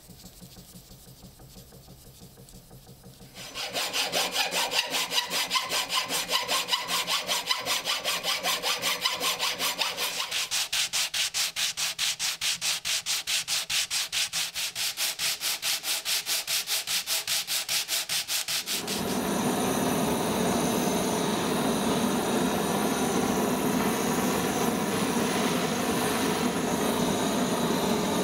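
A flat piece of wood rubbed back and forth over sandpaper in fast, even strokes, starting a few seconds in after faint scraping. About nineteen seconds in this gives way to the steady hiss of a handheld butane torch flaming the new wooden axe handle.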